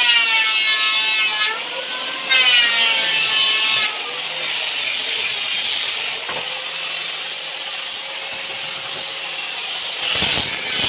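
Drum sander running while sanding wood: a whine with several tones that rises and falls for the first few seconds, then a steady hiss, turning louder and rougher near the end.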